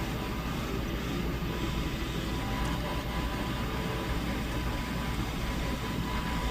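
Hot-air rework station blowing steadily, a continuous rushing of air with a faint steady whine, as it heats a phone's charging port to loosen it from the board.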